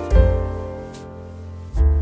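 Background instrumental music: two deep keyboard chords with strong bass notes, each struck and left to fade.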